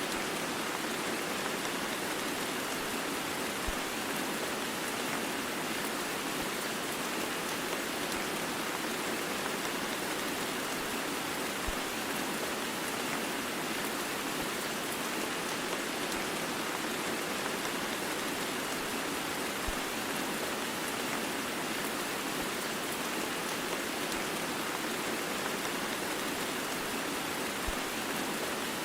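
Heavy rain blended with white noise: a steady, even hiss with no change in level, broken only by a faint tick about every eight seconds.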